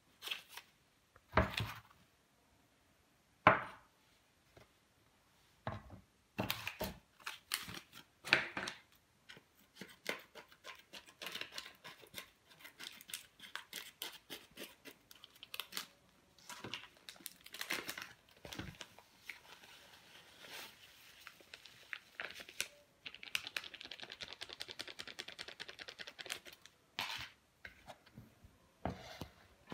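A plastic bag of clay powder being handled: two sharp thumps early on as it is set down on a wooden board, then crinkling plastic and scissor snips as it is cut open. A few seconds of fine, rapid rustling follow as the powder pours into a plastic bowl.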